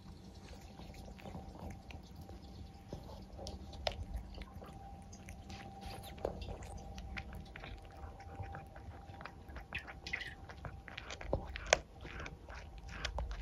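Cat chewing and biting into a whole raw chick, irregular crunches and wet clicks as its teeth work through the carcass, with one sharper crunch near the end.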